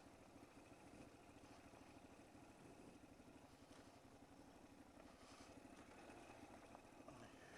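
Moto Morini Camel's V-twin engine running at low revs, faint and muffled through a microphone inside the rider's helmet.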